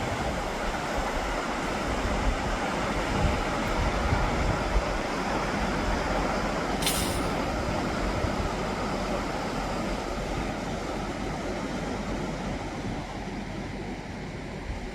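A stream's rushing water, a steady even noise, with one brief click about seven seconds in.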